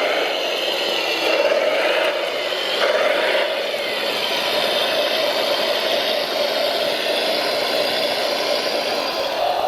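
Radio-controlled construction machine running, a steady engine-like hum with whirring and light rattle, its pitch sliding briefly about two to three seconds in.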